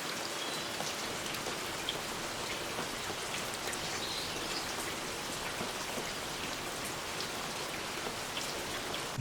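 Steady rain falling, with individual drops ticking sharply on nearby surfaces.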